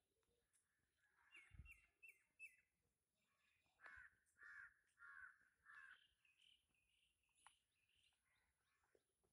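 Faint crows cawing: a run of about five caws starting about four seconds in, with other birds chirping softer before and after. A brief low thump comes about one and a half seconds in.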